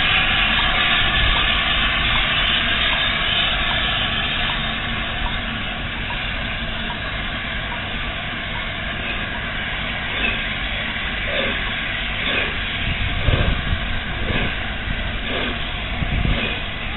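LNER A4 Pacific steam locomotive starting a heavy train slowly and without slipping: loud steam hissing at first that fades over several seconds, then slow exhaust beats about once a second near the end as it gets under way.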